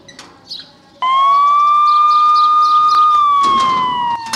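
Siren wail cutting in suddenly about a second in: one loud tone that holds steady for about two seconds, then slowly falls in pitch.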